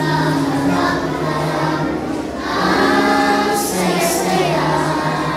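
Children's choir singing together, holding long notes.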